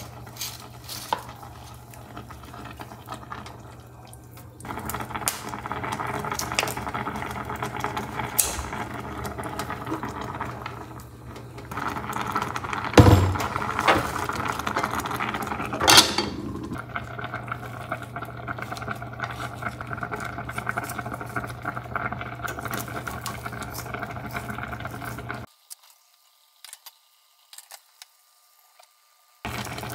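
Kitchen cooking sounds: cutlery, dishes and a pot clattering over a steady low hum, with water and a pot on the boil and two sharp knocks around the middle. The sound drops out to near silence for about four seconds near the end.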